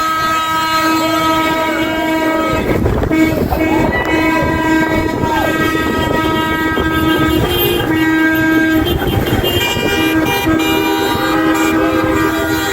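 Several vehicle horns honking in long, overlapping held blasts, a few bending in pitch as they go by, over passing traffic.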